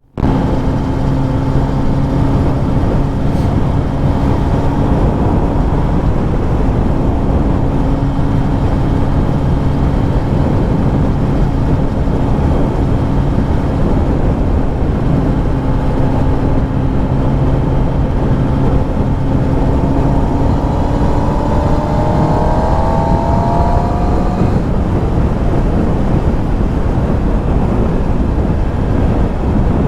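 Kawasaki Ninja ZX-10R's inline-four engine running at a steady cruise under a heavy rush of wind and road noise. Between about 20 and 24 seconds in, the engine note climbs as the bike accelerates.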